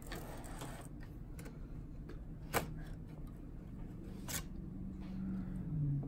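Handling noise as a 2.5-inch laptop hard drive in its metal caddy is lifted out of the drive bay: a brief scraping at the start, then two sharp clicks, the louder one about two and a half seconds in and another near four and a half seconds.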